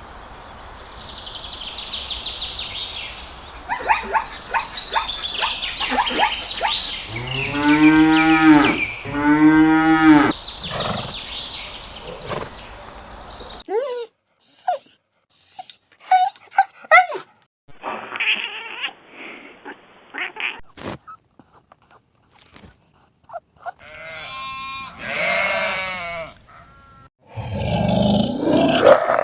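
A quick succession of different animal calls, the sound changing abruptly several times. The loudest are two long, arching lowing calls, like cattle mooing, about eight and ten seconds in.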